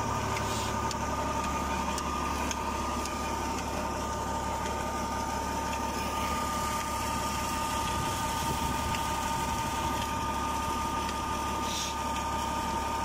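New Holland Ghazi tractor engine running steadily under load, turning a tubewell pump by pulley, with water gushing from the discharge pipe. A steady high whine runs through it.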